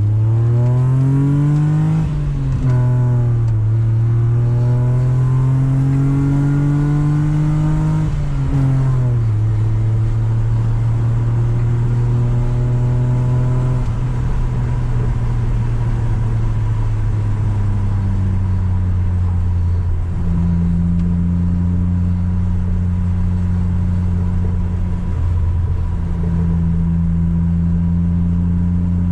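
BMW E36 320i's 2.0-litre straight-six, run without catalytic converters, accelerating through the gears. The revs climb, fall sharply at a shift about two seconds in, climb again, fall at another shift about nine seconds in, then hold steady at cruise.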